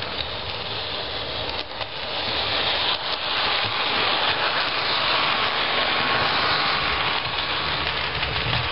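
Model electric multiple unit (trainset 596) running along the layout's track: a steady rushing noise of its motor and wheels on the rails. It grows louder over the first few seconds and stays loud as the train passes close by.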